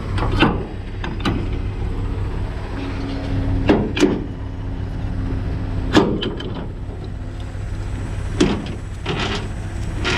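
Semi-trailer landing gear being wound up with its hand crank: irregular sharp metal clanks from the crank handle and landing-gear gearbox, about eight of them, over the steady hum of an idling diesel truck engine.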